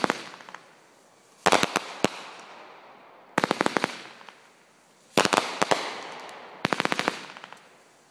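Fireworks going off in five bursts, about every one and a half to two seconds. Each burst is a quick run of sharp cracks that fades out in an echo.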